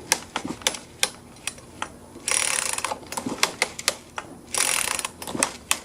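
Husqvarna 120 chainsaw's recoil starter being pulled twice, each pull a rasping zip of rope with a rattle of clicks between. The starter slips and the engine does not fire or crank properly.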